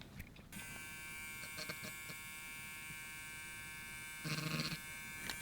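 Small electric grinding pen switched on about half a second in and running with a steady whine, with a brief louder burst about four seconds in.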